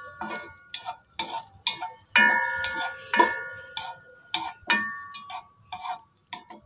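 Wooden spatula knocking and scraping against the sides of a metal cooking pot as melting butter is stirred, in irregular taps about two a second. The harder knocks, about two and three seconds in and near five seconds, leave the pot ringing briefly.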